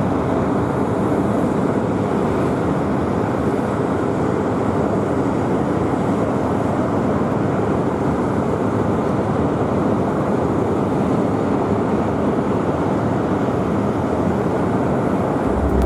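Steady jet engine noise from the LCA Tejas fighter's single GE F404 turbofan, an even noise with no rise or fall in pitch. Music comes in right at the end.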